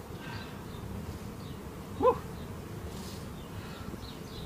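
Honeybees from an opened bee package buzzing in a steady low hum, with one short, louder pitched sound about two seconds in.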